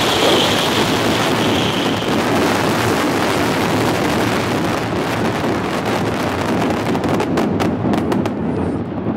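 Fireworks display: a continuous dense rumble and crackle of many shells and ground fountains firing at once. A high whistle slowly falls and fades out about two seconds in, and a quick run of sharp cracks comes about seven to eight seconds in.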